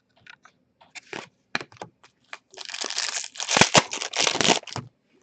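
Hockey card pack's foil wrapper crinkling and rustling as it is handled, after a few light clicks and taps of cards being handled; the crinkling is densest in the second half.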